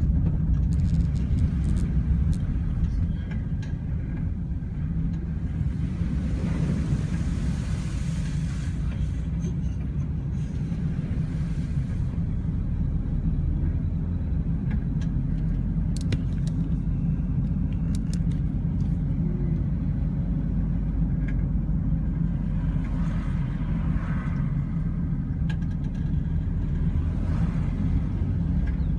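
A car's steady low engine and road rumble heard from inside the cabin while driving on a wet road, with a few faint clicks.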